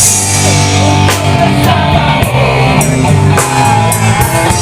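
Instrumental passage of a Malay rock ballad between sung lines: the band plays sustained chords, likely including electric guitar, with drum hits about once a second.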